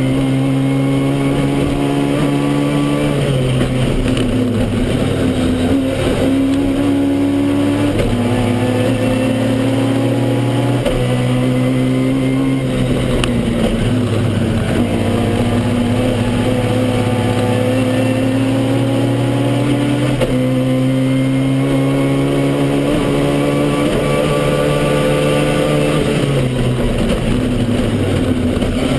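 Toyota Starlet KP61 rally car's engine heard from inside the cabin, pulling hard through a stage. The revs hold or climb slowly, then drop in steps at the gear changes every few seconds, with occasional knocks from the car body.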